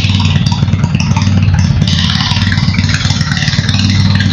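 Lifan MP230 8 hp single-cylinder four-stroke gasoline marine engine running steadily with no load on its bare output shaft, a loud, even engine drone.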